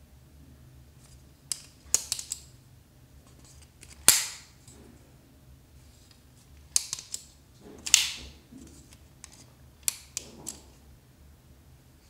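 Kizer Drop Bear clutch-lock folding knife being opened and closed by hand: a series of sharp metallic clicks and snaps as the blade swings out and locks, then is released and shut. The two loudest snaps come about four and eight seconds in, each with a short ring.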